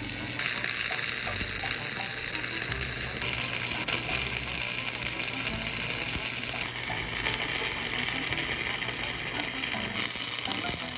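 Gasless flux-core semi-automatic welder arc crackling steadily as a bead is laid, in runs that change near the start, about three seconds in and about seven seconds in, then stopping abruptly at the end.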